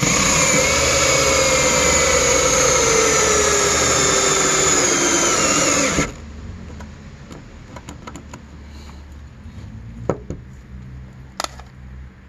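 Cordless drill driving a screw into a deck board, running steadily for about six seconds with its whine slowly falling in pitch, then stopping suddenly. A few light knocks follow.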